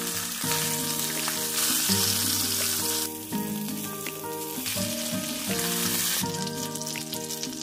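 Salmon fillets and whole garlic cloves sizzling in olive oil and butter in a frying pan, the hiss falling away for a few seconds in the middle before returning. Background music plays underneath.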